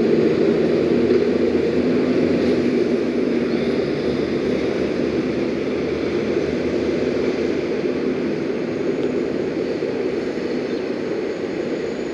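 Heavy truck engine drone mixed with road traffic noise, steady and slowly fading.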